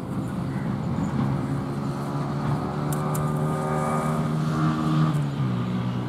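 An engine running steadily nearby, its pitch dropping to a lower, steady note about five seconds in.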